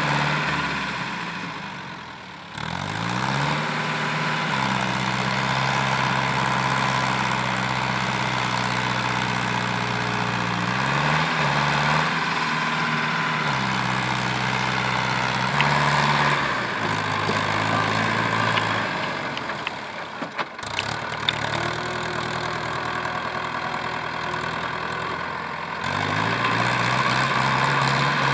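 Mahindra tractor's diesel engine running and revving up several times, its pitch climbing with each rev and settling back between. It is labouring to move the tractor through a soft, muddy field while men push it.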